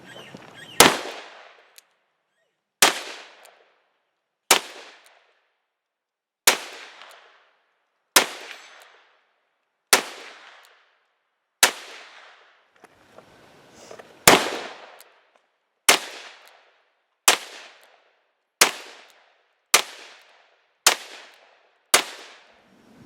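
Smith & Wesson 686 Plus revolver firing .357 Magnum, fourteen single shots, each followed by a short echoing tail. The shots come about two seconds apart at first and quicken to about one a second toward the end.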